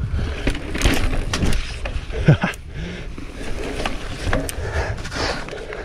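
Mountain bike rolling over rock slabs: a constant low rumble from the tyres, with the bike rattling through many sharp, irregular knocks.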